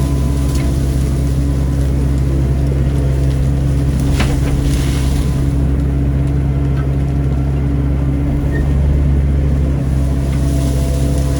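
Caterpillar 307C mini excavator's diesel engine running steadily as it digs, with one sharp knock about four seconds in.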